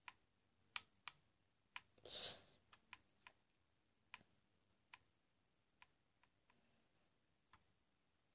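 Faint single clicks of control buttons being pressed, about one a second at first and thinning out after about five seconds, with a short soft hiss about two seconds in.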